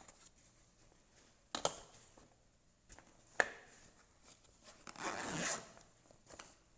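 Wire cutters being handled: a sharp click about a second and a half in, another about three and a half seconds in, then a short rasping rub about five seconds in.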